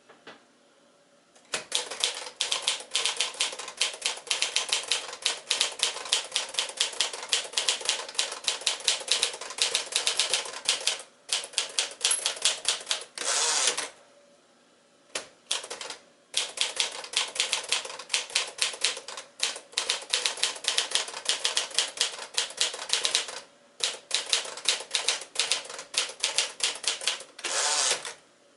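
1953 Smith-Corona Silent manual typewriter being typed on: long runs of rapid, sharp keystrokes with short pauses. Twice, a denser sweep lasting about a second breaks the typing, the carriage being returned to start a new line.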